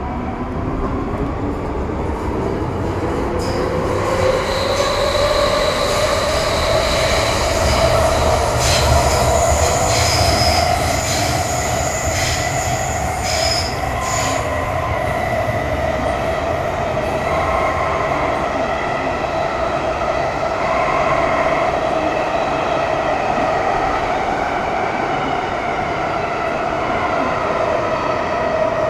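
MTR Metro Cammell M-Train (CT-Stock) EMU running on its GEC GTO chopper traction. The motor whine rises in pitch over the first several seconds as the train accelerates, then holds steady at speed. Over the first half, high squealing tones sit above the running noise.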